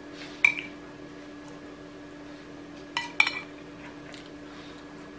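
Metal spoon clinking against a ceramic rice bowl while scooping food: one ringing clink about half a second in, then two more in quick succession around three seconds, over a faint steady hum.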